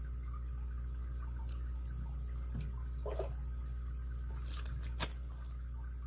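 A few light clicks and taps from a large all-brass padlock being turned over in the hands, the sharpest just after five seconds in, over a steady low hum.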